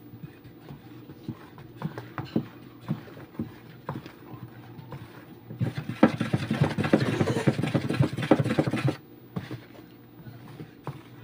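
A wooden spoon stirring a foamy liquid-soap mixture in a plastic basin: scattered taps and knocks against the basin, then about three seconds of fast, loud sloshing and scraping starting around six seconds in. The mixture is foaming from oxygen stain remover being mixed in.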